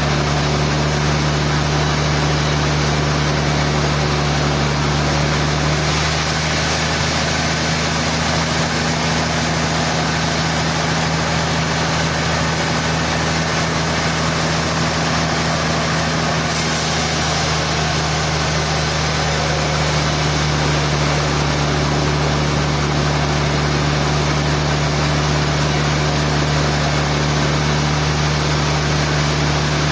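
A sawmill's machinery running steadily with a constant low hum, with no breaks or sudden impacts.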